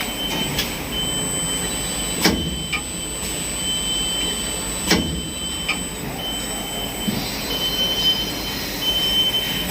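CNC double-side saw blade grinding machine running with a steady hum and a high whine that comes and goes. Sharp mechanical clicks sound about two seconds in and again about five seconds in as its clamp and feed finger work.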